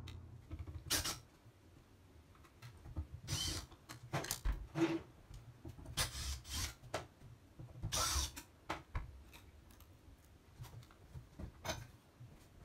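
A cordless drill-driver is handled and worked at a wall switch box: scattered clicks, taps and rubbing, with a few short bursts of noise, the loudest about eight seconds in.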